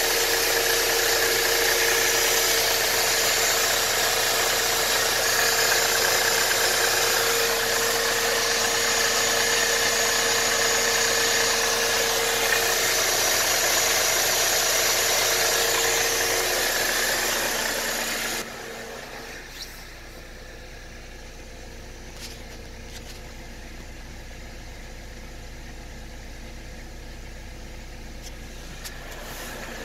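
Mercedes-Benz M271 1.8-litre four-cylinder engine idling steadily, still running on its original timing chain at about 280,000 km. About two-thirds of the way through the sound drops suddenly and turns quieter and duller, as heard from inside the car's cabin.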